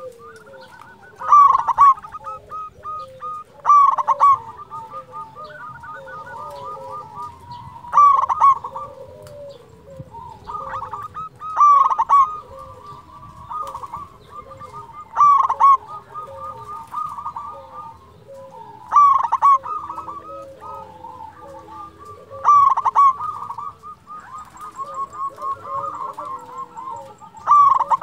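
Local zebra dove (perkutut) singing: a steady run of quick, rolling cooing notes, with a louder phrase about every three to four seconds.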